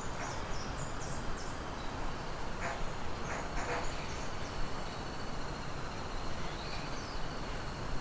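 Small birds chirping in short, high notes, mostly near the start and again around the middle, over a steady background hiss. A thin, continuous high tone runs underneath.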